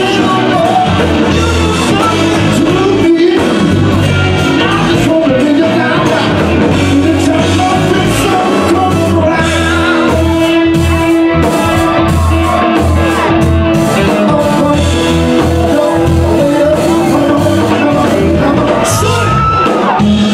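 Live band playing rock music, heard from the audience in a concert hall: electric guitars, bass and drums with a man singing into the microphone.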